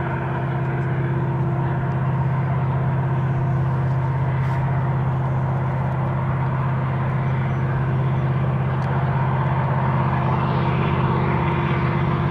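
Two EMD SD70M-2 diesel locomotives leading a heavy coal train, their two-stroke V16 engines running in a steady deep drone that grows slightly louder as the train approaches.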